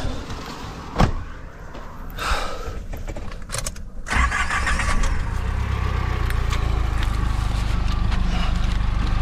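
A sharp knock about a second in, then the small car's engine is started about four seconds in and settles into a steady idle.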